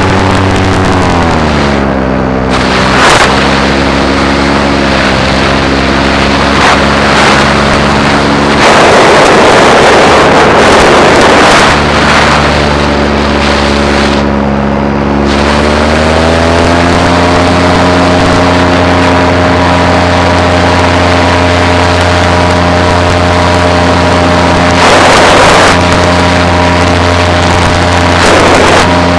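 Paramotor's two-stroke engine running in flight. Its pitch drops as it is throttled back about a second in and climbs again about halfway through, then holds steady. A loud rush of noise passes over it for a few seconds, with shorter bursts later.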